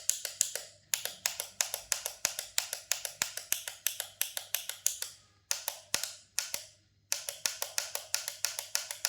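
Rapid runs of sharp clicks, about six a second with a few short pauses, as the 230 V AC supply to a ceiling-fan stator coil is switched on and off over and over; a faint low mains hum sits underneath.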